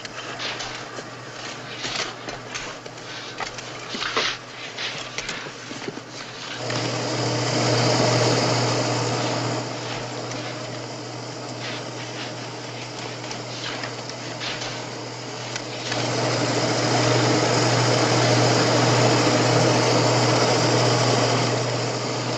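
Shovels scraping and tossing sand on a road, short scrapes and knocks. From about seven seconds in, a truck engine runs steadily under a loud hiss of spreading sand and dust, and it swells again near the end.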